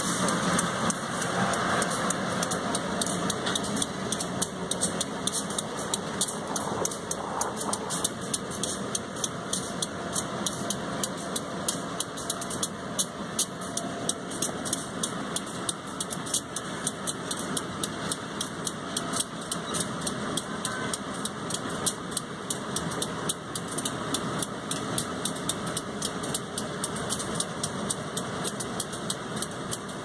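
Diesel freight locomotive's engine running steadily as the train rolls slowly past, heard from right alongside, with a quick, irregular ticking through it.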